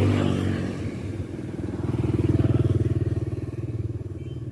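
A motorcycle engine going past, growing louder to a peak about halfway through and then fading away.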